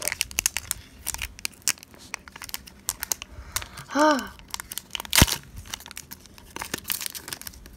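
A Pokémon card booster pack's foil wrapper being torn open and crinkled, with a string of small crackles and one sharp click about five seconds in.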